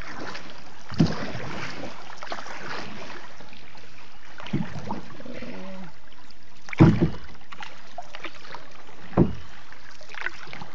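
Small boat being paddled through floodwater: a splash or knock of the paddle about every two and a half seconds, the loudest near seven seconds in, over a steady hiss.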